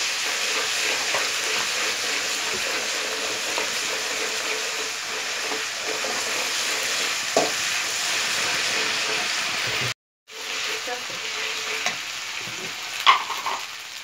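Onions and ginger-garlic paste sizzling in hot oil in an aluminium kadhai, stirred with a metal perforated ladle that clicks against the pan a few times. The steady sizzle cuts out for a moment about ten seconds in.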